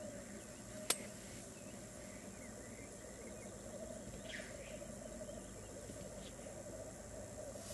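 Black grouse lek chorus: males' continuous low bubbling rookooing, with a few faint higher calls over it. A single sharp click about a second in.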